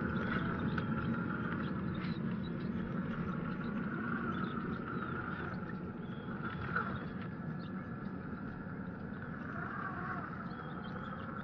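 Traxxas TRX-4 RC crawler with its stock brushed motor driving over a dirt trail: a steady motor and gear whine over the crunch of tyres, with small clicks from stones and twigs.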